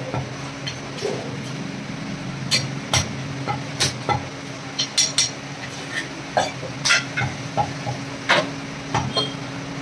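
A butcher's cleaver chopping mutton on a wooden chopping block: a string of sharp, irregularly spaced chops and knocks, with a steady low hum underneath.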